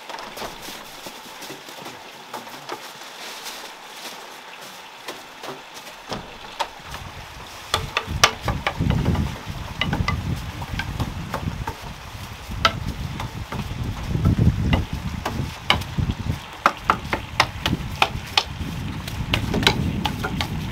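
Straw broom sweeping wooden deck boards and stairs: scratchy brushing with scattered sharp taps and knocks on the wood. About six seconds in, a low rumble comes in and continues underneath.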